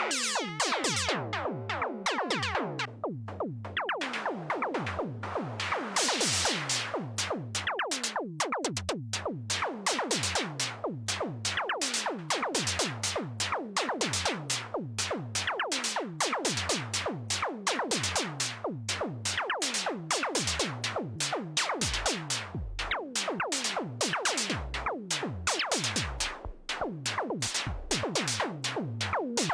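Behringer SY-1 Syncussion analog drum synthesizer playing a fast sequenced pattern of percussion hits, dry and without effects. Each hit has a quick downward pitch sweep, over a pulsing bass note, at several hits a second.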